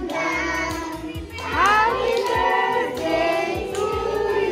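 Recorded song with a child's singing voice over a steady beat.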